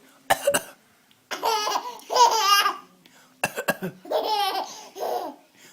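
A baby's put-on cough, short and sharp, comes twice, each time followed by a stretch of high-pitched laughter.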